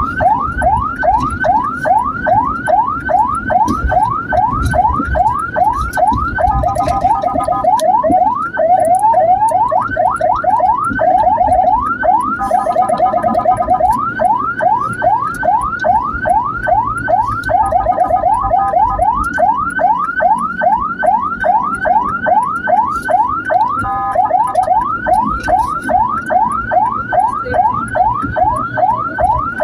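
Ambulance electronic siren sounding a rapid yelp, quick rising sweeps about three to four times a second, switching several times to a briefer, steadier multi-tone pattern before returning to the yelp. A low rumble runs underneath.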